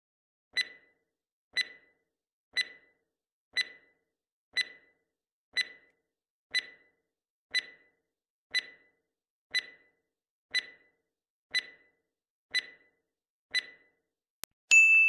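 Quiz countdown timer sound effect: a clock-like tick once a second, fourteen times, then a single loud bell-like ding near the end that rings on and fades, marking time up and the answer reveal.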